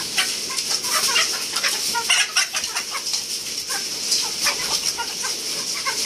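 A flock of Ayam Cemani chickens clucking as they crowd round a bowl of grain feed, with many quick clicks of beaks pecking at the feed.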